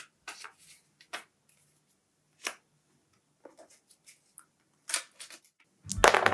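Paper play money being handled on a board game: a string of short rustles and flicks, several of them sharp. Acoustic guitar music comes in just before the end.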